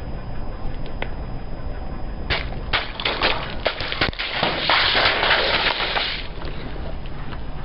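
Crunchy objects being crushed under a car's tyre: a run of sharp cracks and snaps about two seconds in, turning into a dense crackling crunch that stops about six seconds in, over the low rumble of the car.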